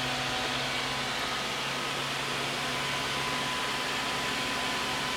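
Steady mains hum with a hiss from a freshly powered-up homebrew tube amplifier setup (5881 push-pull amp on a variac at about 120 volts), idling with no signal playing.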